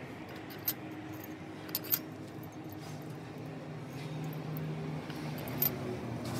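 A few sharp metallic clinks of tools and parts being handled during engine assembly: one about a second in, a quick pair soon after, and one more near the end, over a low steady background hum.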